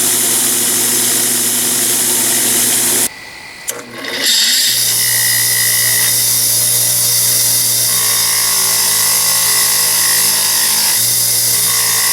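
Electric grinder running and grinding the steel face of a forged hammer head flat, a steady motor whine with grinding hiss. It stops abruptly about three seconds in and starts up again a second or so later.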